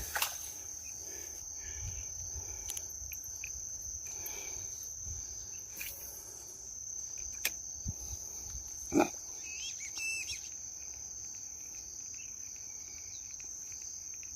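Insects chirring in one steady, high-pitched tone, with a brief louder noise about nine seconds in.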